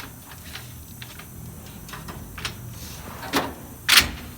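Snap-on Epiq toolbox drawers being slid open and shut: a few light clicks, then two sharp clacks about three and a half and four seconds in, the second the loudest.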